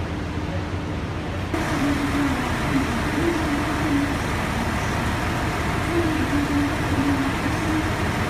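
JR Shikoku 2600 series diesel railcars standing with engines idling: a steady low drone. About one and a half seconds in it gets suddenly louder and hissier, with a wavering hum on top.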